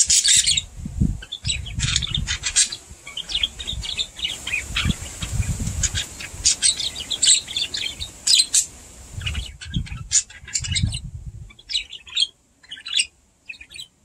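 Budgerigars chirping and chattering in quick, short, high chirps that thin out about twelve seconds in, with intermittent low rumbling underneath.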